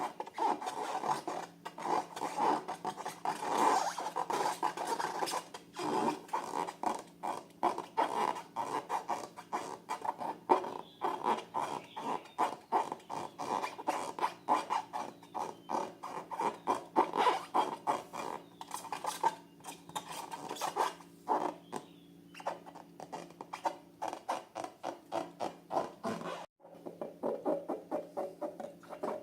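Sticky slime being worked by hand, with rapid wet clicks, crackles and squelches running on without a break until a brief dropout near the end.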